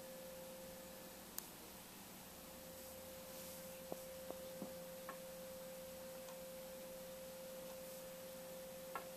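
Faint steady electrical tone with a lower hum beneath it over light hiss, the background noise of a computer recording setup. A handful of soft, brief clicks are scattered through it.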